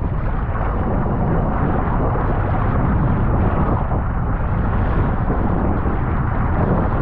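Steady loud rumble of rushing water and wind buffeting the microphone, as a raft rides down a water-park tube slide.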